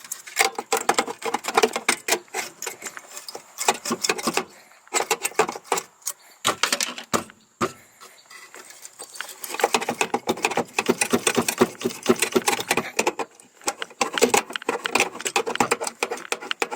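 A cut-out piece of sheet-metal floor pan being worked loose and pulled free: irregular metallic rattling and clinking, easing off briefly about halfway through.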